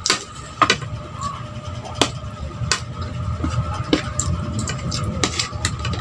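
Metal spoon and fork clinking and scraping on a ceramic plate while scooping rice: several sharp clinks about a second apart, over a steady low hum.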